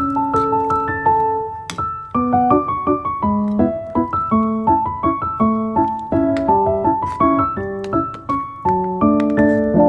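Background piano music: a light melody of quick, separate notes, with a few faint clicks over it.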